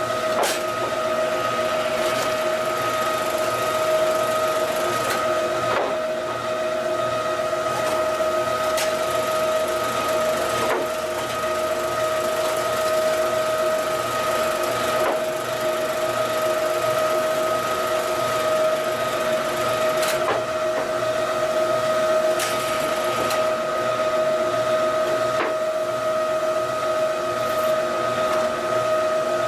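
QTJ4-25 semi-automatic concrete block making machine running: a steady high-pitched machine hum with a low pulsing rhythm underneath, broken by sharp metallic clanks every two to five seconds.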